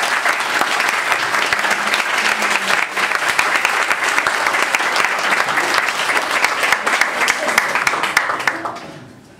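A room of people applauding: steady, dense hand-clapping that dies away about a second before the end.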